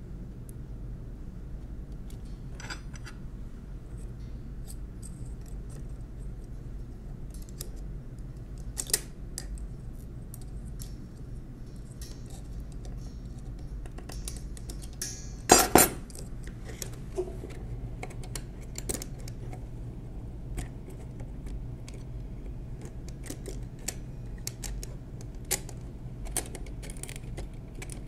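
Small metal parts clicking and clinking as pliers and fingers work the steel bars and levers of a 1920s Monroe Model K mechanical calculator's keyboard assembly, with one louder metallic clatter about halfway through.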